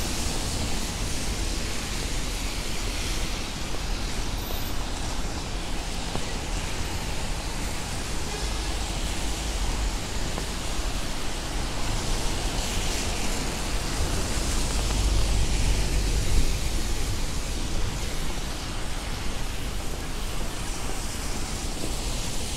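Steady hiss of rain on a city street with the low rumble of traffic, swelling briefly about fifteen seconds in.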